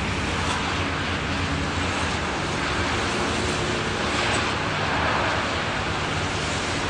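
Storm waves breaking against a rock breakwater: a steady rushing noise that swells about a second in and again around five seconds in.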